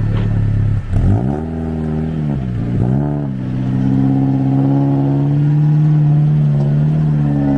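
Off-road 4x4's engine revving. Its pitch drops and then climbs sharply about a second in, dips again just before three seconds, and then holds at high revs.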